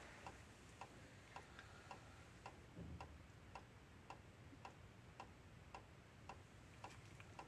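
Near silence with a faint, even ticking, about three to four ticks a second.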